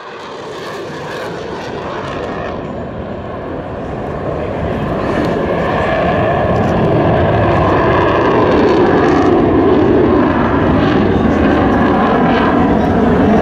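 Belgian F-16 fighter jet's engine: a broad rushing jet noise that grows steadily louder over the first several seconds as the jet approaches, then holds at full strength.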